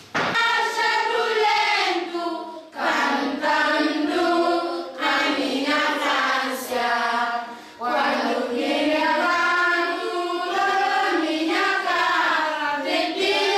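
A group of schoolchildren singing together in unison, unaccompanied, with two brief breaks between phrases, about 3 s and 8 s in.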